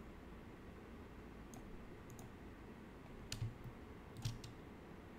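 Computer mouse buttons clicking faintly a few times, with the two clearest clicks in the second half.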